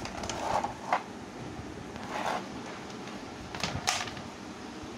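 Hard plastic parts of an RFL baby rocking chair being handled, scraping and knocking together, with a sharp click about a second in and a few more near the end.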